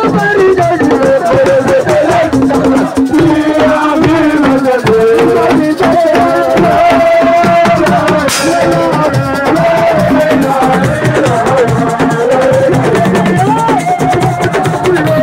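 Live Senegalese assiko band music: a wavering sung melody over dense, continuous drumming and rattling percussion.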